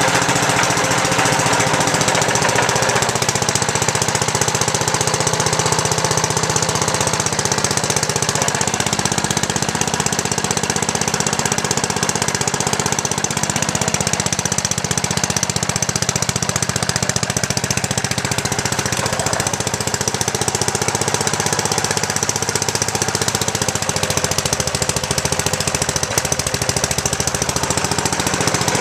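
1940s Gladden Busy Bee 3 HP single-cylinder, air-cooled engine running steadily, with a rapid, even firing rhythm.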